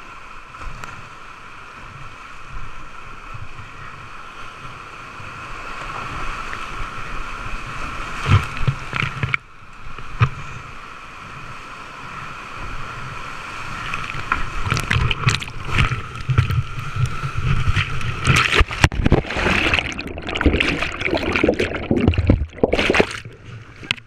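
Whitewater rapids rushing around a kayak, with paddle strokes and water splashing over the camera close to the paddler. The water is steady at first, then from about halfway through it turns louder and choppier with many sharp splashes and knocks as the boat drops through the bigger rapids.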